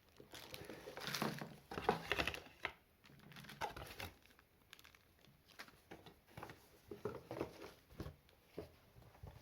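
Plastic packaging crinkling and rustling as boxed accessories are unwrapped, loudest over the first few seconds, followed by lighter scattered taps and rustles from handling.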